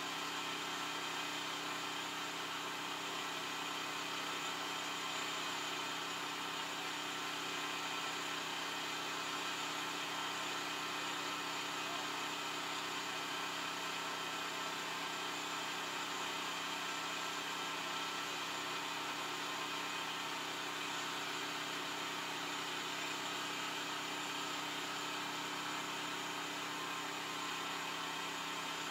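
Yanmar YT333 tractor's diesel engine idling steadily, heard from inside the cab.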